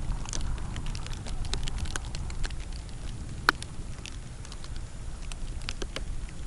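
Light rain: scattered raindrops ticking irregularly, one sharper tick about halfway through, over a low wind rumble.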